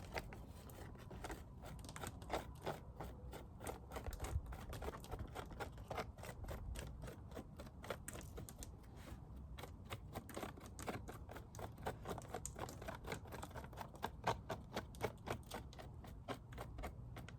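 Dead bees being scraped off a frame of wax comb from a dead-out colony: a run of quick, irregular scratchy clicks, several a second.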